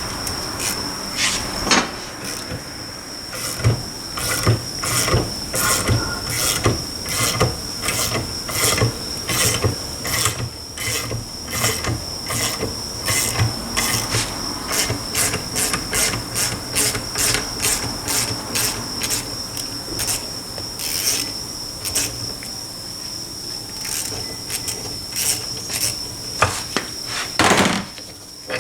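Repeated sharp metal knocks, roughly two a second, from tools at work on a Suzuki Carry rear differential being dismantled, with a heavier knock near the end. A steady high-pitched tone runs behind them.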